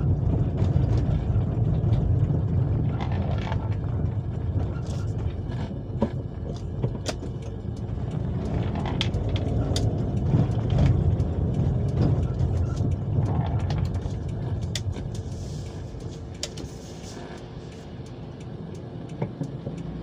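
Low, steady rumble of a vehicle travelling along a road, engine and road noise together, with scattered light clicks and knocks; it grows gradually quieter over the second half.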